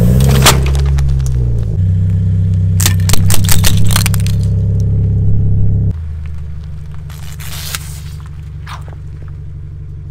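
A car engine running close by with a low steady hum, revving briefly at the start, as the tyre crushes objects on asphalt. Sharp cracks and crackles come in a cluster about three seconds in. The sound changes suddenly about six seconds in, followed by a few short bursts of noise.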